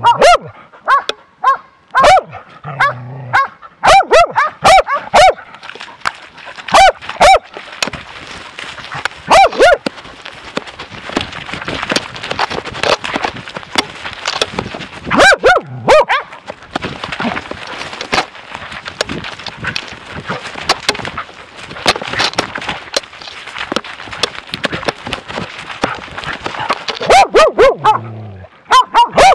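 Karelian bear dogs barking in fast runs near the start and near the end, with single barks between. Through the long middle stretch there is a steady rustling as the harness-camera dog moves through brush.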